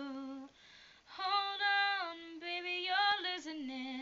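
A woman singing solo and unaccompanied: wordless held notes that step up and down in pitch, with a short break about half a second in before the voice comes back.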